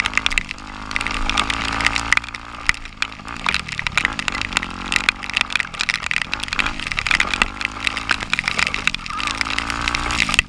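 Off-road vehicle engine revving up and down again and again as it is ridden, with many sharp ticks and clicks over it.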